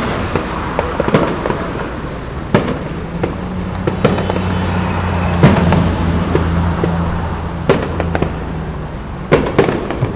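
Fireworks display: aerial shells bursting one after another, a sharp bang every second or so over continuous crackling, the loudest about halfway through. A steady low hum runs through the middle of it.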